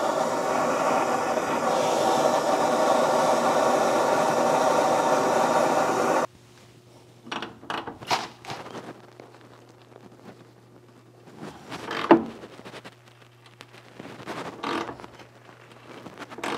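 Handheld gas torch flame running with a steady roar as it heats a rusted truck cab mount bolt, then shutting off suddenly about six seconds in. After that come intermittent metal scrapes and knocks as a long wrench extension is worked on the bolt, with one sharp knock near the middle.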